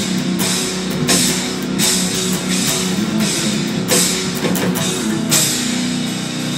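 Electric guitar played over a progressive-metal backing with a drum kit; the drum and cymbal hits stop about five seconds in, leaving sustained guitar notes ringing.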